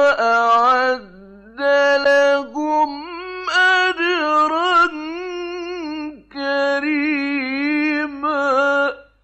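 A man's voice chanting Qur'an verses in slow, melodic tajweed style: long, held, wavering notes in several drawn-out phrases with short breaks between them, stopping near the end.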